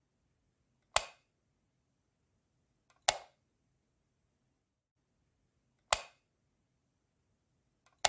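Light switch clicking four times, a couple of seconds apart, switching an incandescent bulb on and off. Two of the clicks have a faint tick just before them.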